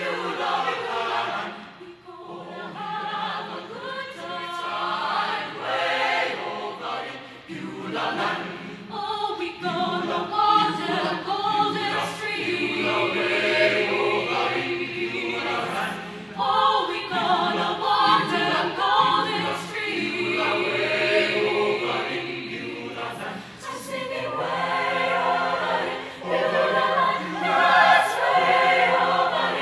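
Mixed high school chamber choir singing a spiritual arrangement in several voice parts, with phrases swelling and easing.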